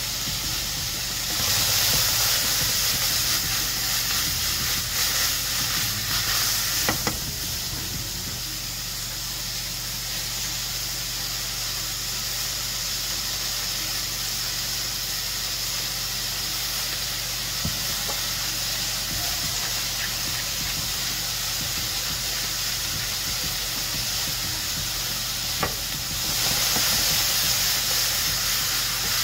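Sliced brown mushrooms sizzling in a nonstick frying pan, a steady frying hiss that grows louder for several seconds near the start and again near the end as the pan is tossed, with a couple of light knocks.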